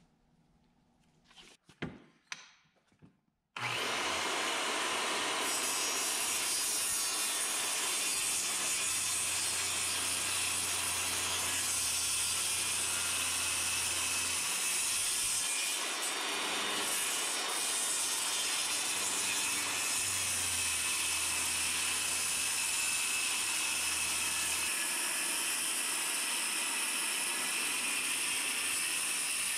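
Corded circular saw cutting a long straight line through a sheet of plywood. After a few light clicks, it starts suddenly about three and a half seconds in and keeps cutting steadily.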